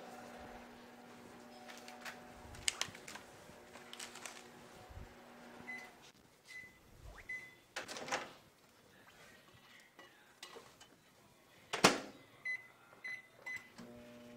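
A spoon clinking and scraping in a small metal cup, with short ringing taps and a few sharp knocks, the loudest about twelve seconds in. A steady low hum stops about six seconds in and comes back near the end.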